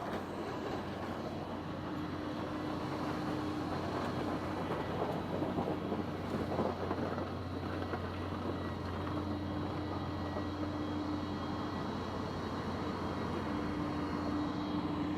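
Small electric motors and gearboxes of Huina radio-controlled excavator and loader toys running, a steady whir with a hum underneath and a motor tone that starts and stops three times as the machines work.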